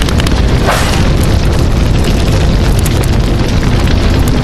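Loud, continuous rumbling sound effect with dense crackling through it: an added magic-energy or electric-zap effect.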